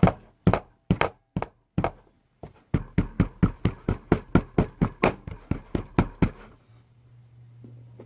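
A series of sharp knocks on a hard surface: a few spaced about two a second, then a quick run of about five a second that stops suddenly.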